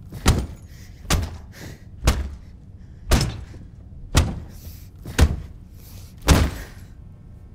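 A series of seven heavy thudding impacts, about one a second, each with a short decaying tail and faint whooshes between them: cinematic hit sound effects. The hits stop near the end, and a faint steady tone comes in.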